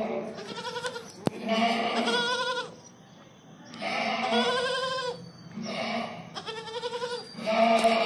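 Young Hyderabadi goat kid bleating over and over, about six quavering bleats in quick succession. There is a single sharp click a little over a second in.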